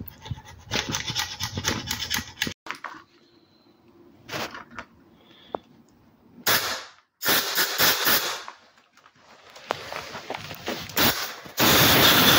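Irregular metallic clicks, knocks and scrapes of a hand tool on a cast-iron diesel cylinder head with its valve springs fitted. The clicks are dense at first, with scattered sharp ones after, and a louder steady scraping noise lasts about a second and a half near the end.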